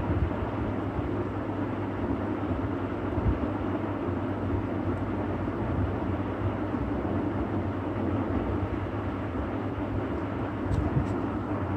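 Steady low hum and rumble of background noise, with two faint clicks near the end.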